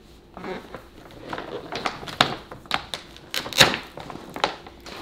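Irregular clicks, knocks and rustling of objects being handled close by, with the sharpest knock about three and a half seconds in.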